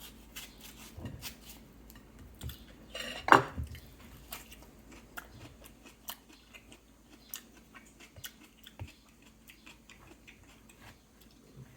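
A grapefruit being peeled by hand: scattered small clicks and rustles of the rind, with one louder handling sound about three seconds in.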